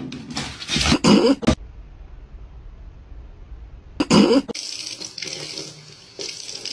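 Two short, loud bursts, one about a second in and one about four seconds in. Then a kitchen faucet runs steadily into a stainless steel sink.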